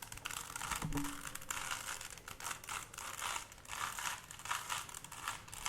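A 3x3 Rubik's Cube being scrambled: quick, irregular plastic clicks and clacks as its layers are twisted, several a second.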